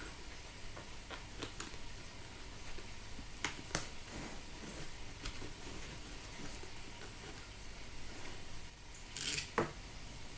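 Sharp little clicks and taps of hands working plastic and padding inside a motorcycle helmet's lining, a few scattered ones, then a louder rattle of clicks near the end.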